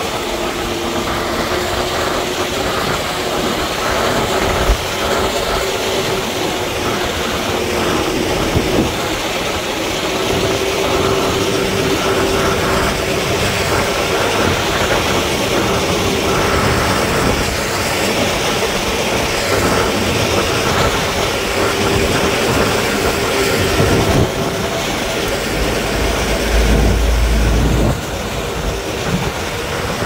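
Heavy road-construction machinery working gravel: a steady, loud mechanical grinding and rumbling with high squealing tones that come and go. A deeper rumble swells for about three seconds near the end and stops abruptly.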